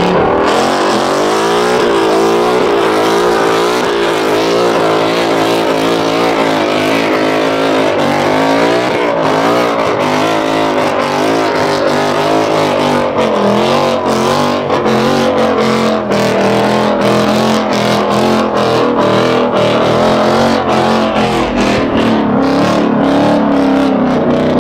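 Car engines running at high revs, their pitch swinging up and down over and over as the throttle is worked, from cars drifting and making smoke.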